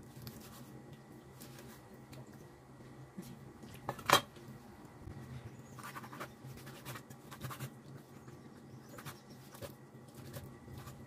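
Kitchen knife dicing raw chicken breast on a wooden cutting board: irregular knocks of the blade against the board, the loudest about four seconds in.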